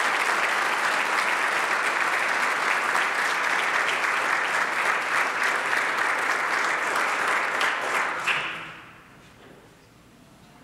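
Audience applauding, a dense steady clapping that dies away about eight and a half seconds in.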